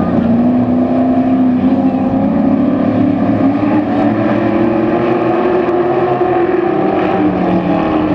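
Racing trucks' engines running hard around an oval track, several at once. The main engine note climbs slowly for several seconds, then drops near the end.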